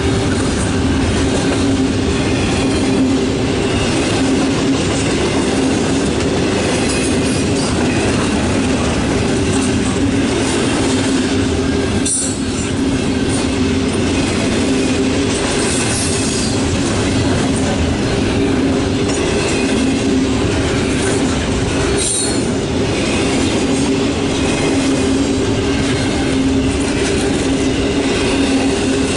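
Double-stack intermodal freight train rolling past at close range: steady wheel-on-rail noise of the well cars, with a steady tone under it and two sharp knocks, one about a third of the way through and one about three quarters through.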